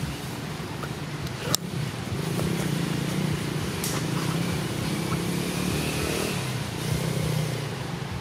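Low, steady hum of a motor vehicle engine running, with a single sharp click about a second and a half in.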